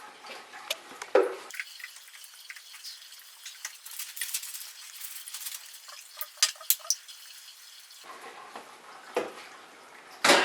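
Light clinks and taps of kitchen utensils and dishes while pesto ingredients are handled, with a few sharper clicks about six to seven seconds in.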